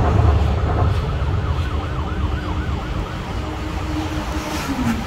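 Low city-traffic rumble fading slowly, with a faint wavering siren-like tone above it; the tone slides lower near the end.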